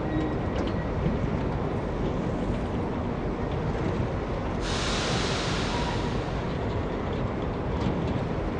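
Sentinel steam waggon standing in steam, its vertical boiler giving a steady rumble and hiss. About five seconds in comes a louder rush of steam hissing that lasts about two seconds.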